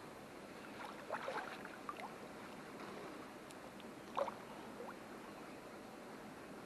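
Bare feet moving in pond water, with a few soft splashes and swishes: a cluster about a second in and another about four seconds in.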